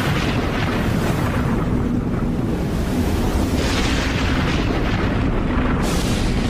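Cinematic intro sound effect: a continuous deep, noisy rumble, with three airy whooshing swells over it, about a second in, midway and near the end.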